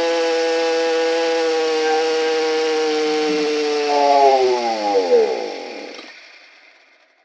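Two-stroke string trimmer engine running steadily. About four seconds in it wavers and its pitch falls away until it dies within about two seconds: the engine won't stay running, which the mechanic puts down to an air leak, a fuel restriction or a carburetor issue.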